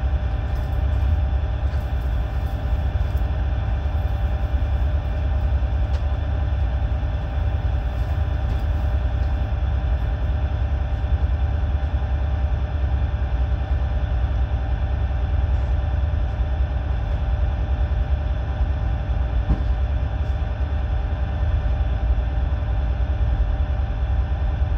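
Steady low rumble with a constant machinery hum from a moored tanker's running plant.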